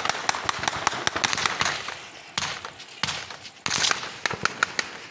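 Heavy gunfire: dozens of shots in rapid, irregular succession, some close together in quick bursts, with echoes trailing after them.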